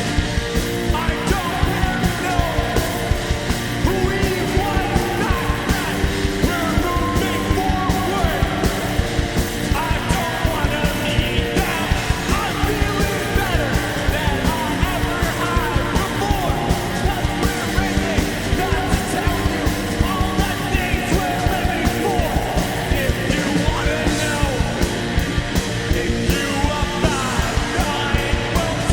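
Loud punk rock band playing live, with yelled vocals over electric guitars and a steady, driving drum beat.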